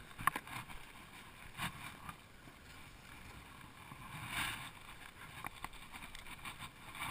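Faint knocks and rubbing of a plastic sit-on-top kayak, a Jackson Coosa, being pulled by its rope and launched from the bank. There are a few light knocks in the first two seconds and a brief louder rush about four seconds in.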